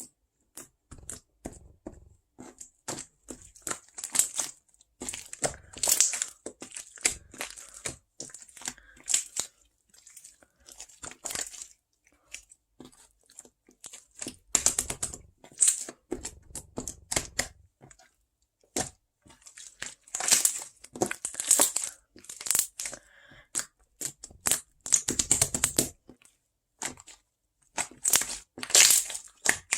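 Close-miked ASMR handling sounds: a string of short, irregular crackly, crinkly noises in clusters with brief pauses between.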